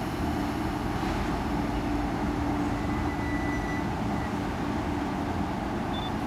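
MTR East Rail Line electric multiple-unit train pulling out of a station, a steady hum over running rumble as it moves off. A faint thin whistle-like tone sounds briefly about halfway through, and a short high beep near the end.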